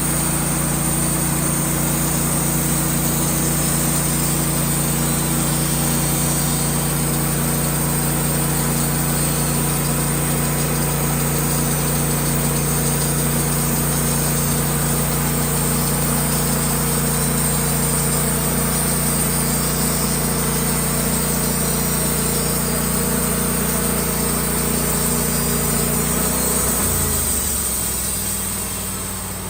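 Band sawmill's engine running steadily under the saw, then slowing down about three seconds before the end as it is throttled back.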